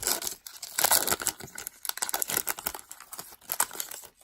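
A hockey card pack's plastic wrapper crinkling and tearing as it is ripped open, in a run of irregular crackles.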